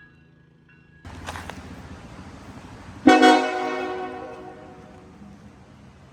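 Nathan Airchime K5LLA five-chime train horn: a burst of noise about a second in, then a loud multi-note chord that starts abruptly about three seconds in and fades away over the next two seconds.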